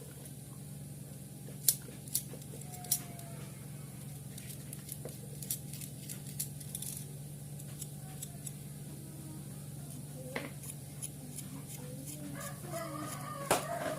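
Scattered sharp clicks and taps over a steady low hum, with a few short, wavering pitched calls near the end.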